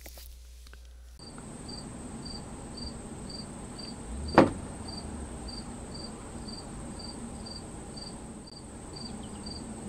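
An insect chirping steadily, short high chirps about twice a second, over a thin steady high whine. There is a single sharp knock about four and a half seconds in.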